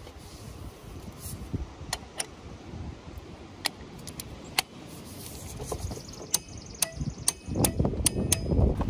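Tekton click-type torque wrench being fitted and ratcheted on a bolt being tightened to 40 ft-lb: a string of sharp metallic clicks, sparse at first and coming faster in the second half, with a brief rattle and handling noise.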